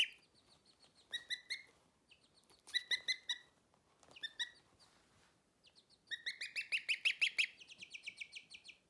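Baby bird peeping: short high peeps in small groups, then a fast run of peeps from about six seconds in that lasts a couple of seconds.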